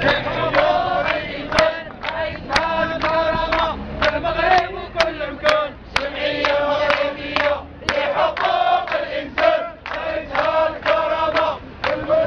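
A crowd of protesters chanting slogans in unison to a steady beat, about two accented syllables a second, with hand-clapping.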